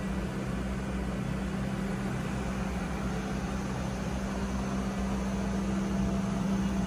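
Steady machinery hum and ventilation noise of a ship's engine room, with a constant low drone.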